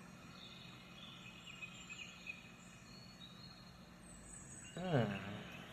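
Faint birdsong chirping over a soft steady background hum. About five seconds in comes one short, louder voice sound that falls in pitch.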